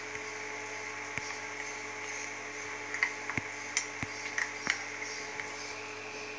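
Metal spoon clinking and scraping against a small steel pan while stirring cornflour and water into a paste, a handful of light taps mostly between about three and five seconds in. A steady electrical hum runs underneath.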